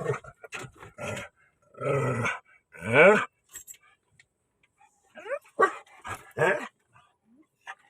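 A dog barking in a run of pitched calls: two longer ones, the second rising in pitch and the loudest, then four shorter barks in quick succession.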